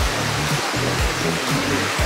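Background music with a steady beat about twice a second and a moving bass line, over the steady rush of a fast-flowing river.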